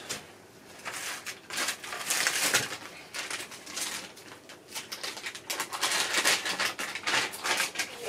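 Plastic anti-static bag crinkling and rustling as it is handled, in two spells with a lull in the middle.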